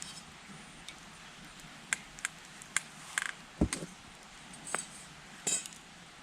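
Wood campfire burning with a steady faint hiss and scattered sharp crackles and pops, and one low thud about three and a half seconds in.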